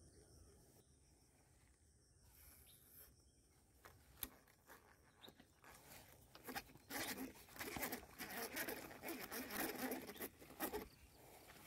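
A baitcasting reel is cranked fast, a rapid whirring, clicking rasp, while a snakehead is being played on a strike. It starts about six seconds in and stops near the end, after a single click about four seconds in.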